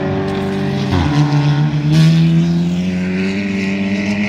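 A touring race car's engine running hard at full throttle. Its pitch drops sharply about a second in, then climbs steadily.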